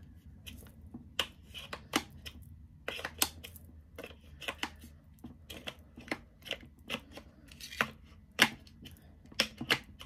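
Hard plastic clicking and knocking of a hair dryer's concentrator nozzle being worked on and off the barrel by hand, in irregular short knocks. This is the counterfeit Dyson Supersonic, whose nozzle comes right off without the clack of a gripping fit.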